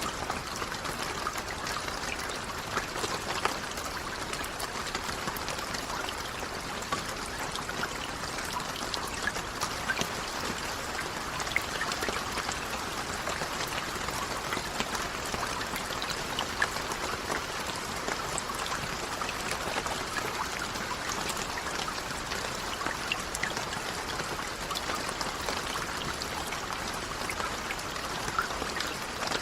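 Steady rain falling: an even hiss dotted with many small, separate drop ticks.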